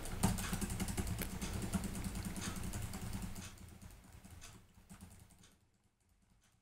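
Laptop keyboard typing, fast key clicks picked up by a sensitive USB microphone, with a low hum underneath. The clicks fade and cut off about five and a half seconds in as an OBS expander's threshold is raised to gate them out.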